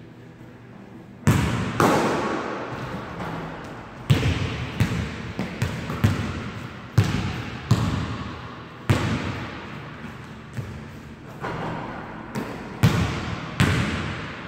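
Basketball bouncing on a hardwood gym court: about fourteen irregular thuds, starting a little over a second in, each trailing off in the hall's echo.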